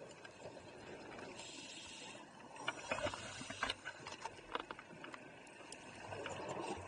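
Muffled underwater sound of scuba divers' exhaled bubbles, with a cluster of sharp clicks and knocks about three seconds in as a diver handles the camera rig, and a swell of bubbling near the end.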